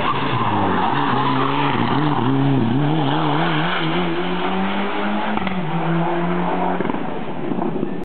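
Mitsubishi Lancer Evolution IX rally car's turbocharged four-cylinder engine working hard through a hairpin, its note wavering up and down with the throttle before settling into a steadier pull. One sharp crack about five and a half seconds in, typical of its antilag system.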